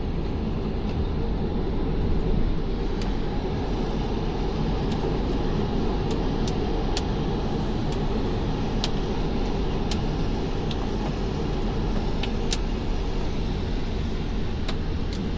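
Steady vehicle noise, heaviest in the low end, with a dozen or so light, irregular clicks over it.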